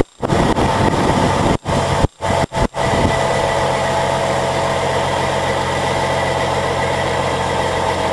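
Triaxle dump truck's diesel engine running steadily while its hydraulic hoist raises the bed to tip a load of stone. The sound cuts out briefly several times in the first three seconds, then runs unbroken.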